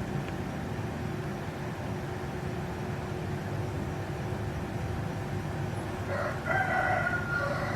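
A rooster crows once near the end, a single drawn-out cock-a-doodle-doo lasting about two seconds, over a steady low rumble.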